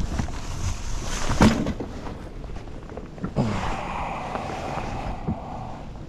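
Waves washing and splashing around a kayak in surf, with wind on the microphone. A few sharp thuds land near the start, about a second and a half in, and about three and a half seconds in; after the last one comes a longer rushing wash of water.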